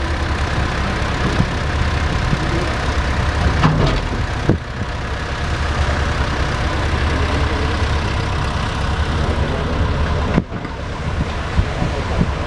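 Farm tractor engine running steadily.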